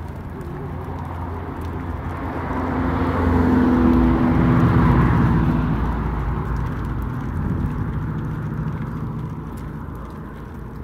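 A motor vehicle passing by, its engine and tyre noise swelling to a peak about four to five seconds in, then slowly fading away.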